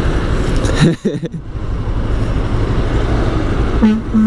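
Motorcycle riding noise, a steady rumble of engine and wind. Near the end a semi truck's air horn gives two short blasts.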